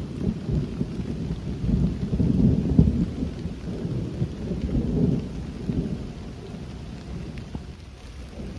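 Thunder rumbling low and rolling in several swells, fading toward the end.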